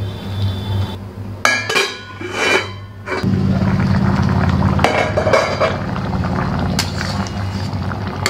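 A metal spatula scraping and clinking against a steel kadai as a simmering curry is stirred, in strokes about a second in and again near the middle and later. Background music plays underneath.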